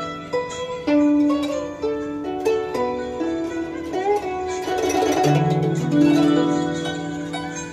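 Guzheng playing a slow melody of plucked notes that ring on. Some notes are bent in pitch by pressing the string (the press-and-bend technique), and a brief dense flurry of notes comes about five seconds in.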